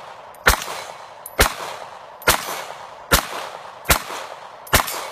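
Six shots from an Honor Defense 9mm pistol fired in a steady string, about one a second. Each report is followed by a short echo that fades away.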